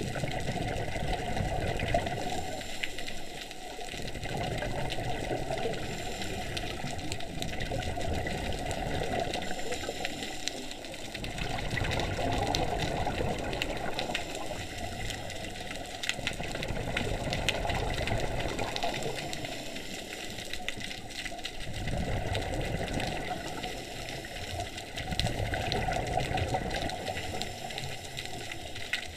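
Scuba diver breathing through a regulator underwater, heard through an action camera's waterproof housing: bursts of exhaled bubbles gurgle and rumble about every five seconds.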